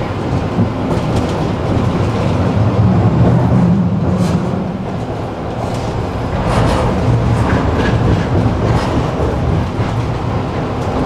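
Tram running along the track: a steady low rumble from the wheels and running gear, with scattered sharp clicks as the wheels pass over rail joints, more of them from about six seconds in.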